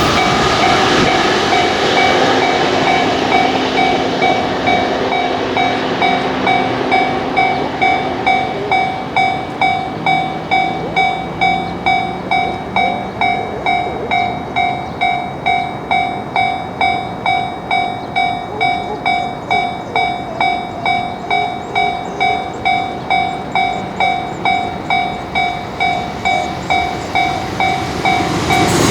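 Japanese railway level crossing warning bell ringing 'kan-kan' steadily, about two strikes a second. A passing train's running noise covers it at first and dies away over the first several seconds, leaving the bell ringing clear.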